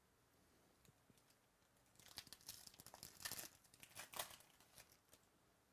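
Foil wrapper of a 2017 Phoenix football card pack being torn open and crinkled by hand: a flurry of crackling rips starting about two seconds in and lasting about three seconds.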